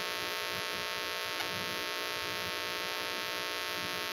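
Steady electrical hum with a buzzy edge, and a faint tick about a second and a half in.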